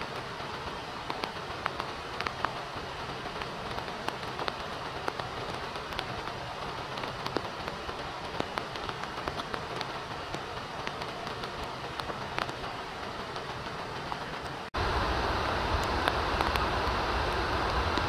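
Rain falling, a steady hiss with many individual drops ticking. About fifteen seconds in it cuts abruptly to a louder stretch with a deeper rumble underneath.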